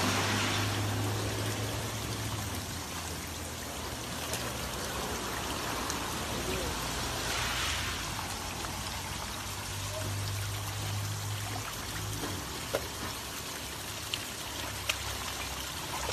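Muddy floodwater pouring and rushing over debris and a pipe, a steady watery hiss, with a low hum under it at times.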